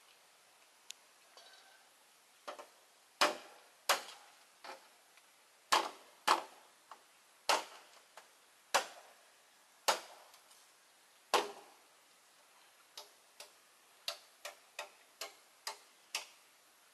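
A blade chopping through a green bamboo pole lying on the ground: about a dozen hard, sharp chops at uneven intervals, then a quicker run of lighter chops near the end as the pole is cut in two.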